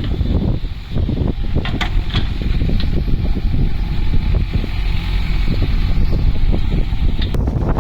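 JCB backhoe loader's diesel engine running steadily, with wind buffeting the microphone and a few sharp clicks.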